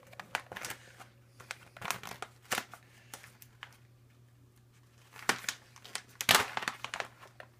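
Plastic treat bag crinkling as it is handled, in scattered rustles and crackles, with the loudest crinkles a little past the middle.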